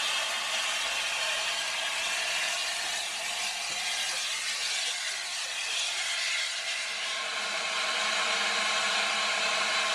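LNER Class A4 steam locomotive standing at the platform with steam hissing steadily.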